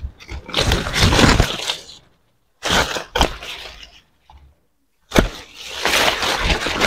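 Soursop tree branches cracking and leaves rustling during pruning. The sound comes in three rough stretches with two brief silences between them.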